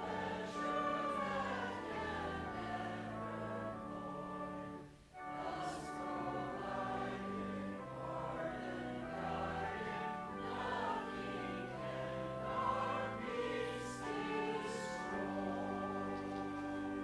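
A congregation singing a hymn with organ accompaniment, in held chords that step from note to note, with a short break between phrases about five seconds in.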